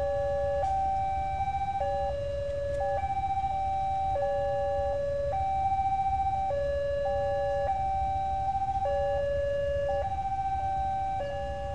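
Indonesian railway level-crossing warning alarm sounding its electronic two-tone signal, alternating steadily between a lower and a higher tone, each held for roughly three-quarters of a second. It means the crossing is closing for an approaching train.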